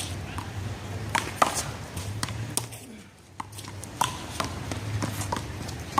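A rubber handball being slapped by hand and bouncing off the wall and pavement in a rally, heard as about ten sharp, irregularly spaced smacks, the loudest about a second and a half in.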